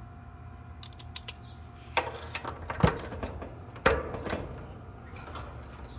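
Socket wrench on an extension working the small, stiff nut of an AC capacitor's mounting bracket, giving irregular metallic clicks and knocks, the sharpest about 2, 3 and 4 seconds in.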